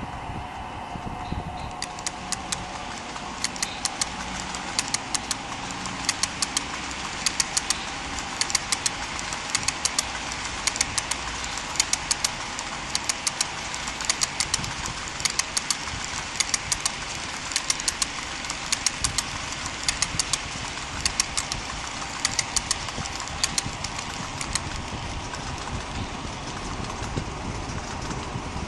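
HO-scale model coal hopper cars rolling past on the track, their metal wheels clicking over a rail joint in quick groups about once a second, over a steady hum.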